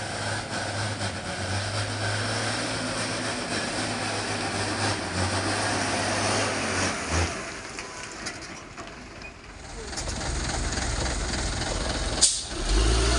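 Mitsubishi Fuso truck's diesel engine running under a heavy load of oil-palm fruit, a steady low hum. It fades for a few seconds in the middle and then grows louder toward the end. A single sharp click comes about twelve seconds in.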